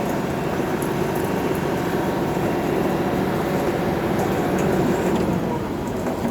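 Heavy diesel truck engine running steadily under load at a concrete pumping job, swelling slightly about four to five seconds in.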